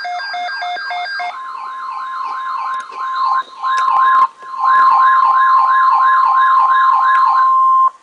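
Emergency alert tones from a weather radio broadcast: a rapidly pulsing electronic beeping, then from about a second in a steady high alert tone (the weather radio's 1050 Hz warning tone) under a wailing siren-like warble about three times a second. It all cuts off suddenly near the end.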